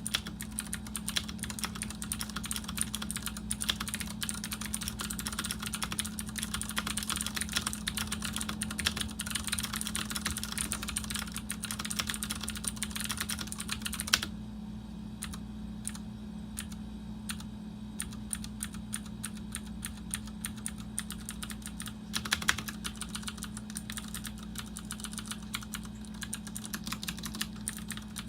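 Typing on a Ducky One 2 TKL mechanical keyboard with clicky Cherry MX Blue switches: a rapid stream of sharp key clicks. Past the halfway point the typing thins out to scattered, quieter keystrokes for several seconds, then picks up again. A steady low hum sits underneath.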